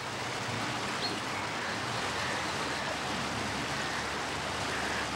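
Rushing water of a waterfall or river rapids, a steady even wash of noise.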